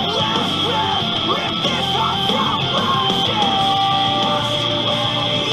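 Rock music with vocals, the soundtrack of a video playing through a TV's speakers.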